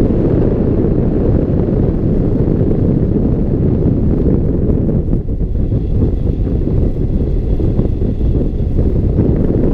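Rushing airflow of a hang glider in flight buffeting a wing-mounted camera's microphone: a loud, steady, low rumble of wind noise.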